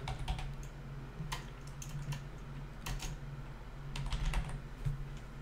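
Typing on a computer keyboard: irregular, unhurried keystrokes entering a search, with a low hum underneath.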